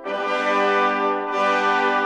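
Music of long held brass notes, with a new note sounding a little over a second in.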